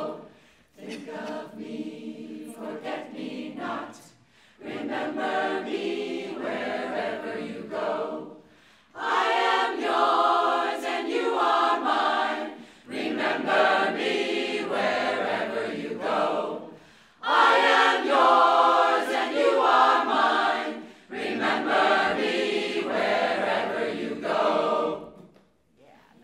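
Mixed choir of men and women singing a South African song a cappella, in about six phrases with short breaks between them. It is quieter at first and fuller from about nine seconds in, and the singing stops shortly before the end.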